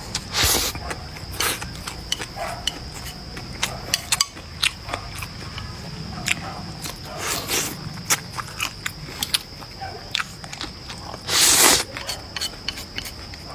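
Eating sounds: chewing and biting with many small clicks, and a few louder rushing bursts, the loudest near the end. A faint steady high whine runs underneath.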